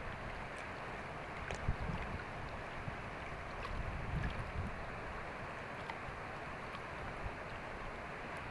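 Steady rush of flowing river water, with low gusts of wind buffeting the microphone, strongest about four seconds in.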